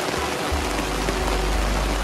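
Steady rain hissing and pattering on a tent tarp, with a deep low rumble starting about half a second in and holding.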